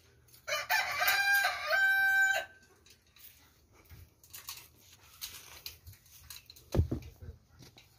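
A rooster crowing once: one stepped call of about two seconds ending on a held note. A single dull knock comes near the end.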